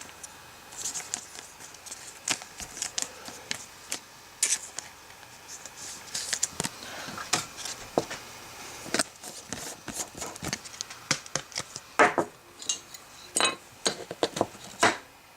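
Trading cards and their packaging being handled on a table: irregular light clicks, taps and brief sliding rustles of card stock, with a few sharper taps near the end.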